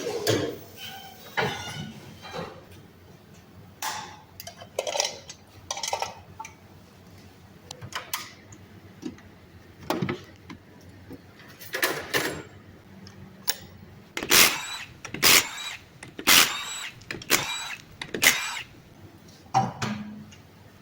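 Hand tools working on a car's front suspension: irregular sharp metallic knocks and clanks, then a run of five ringing metal strikes about one a second in the last third.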